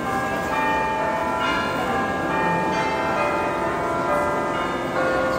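Church bells ringing, many bell tones struck one after another and overlapping as they ring on.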